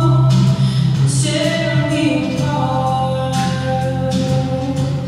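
Music: a song with a singing voice over sustained low accompaniment.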